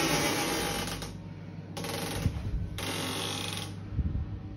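Glass shower screen door sliding along its runners in a few short rolling swishes, about a second each, with a light knock or two.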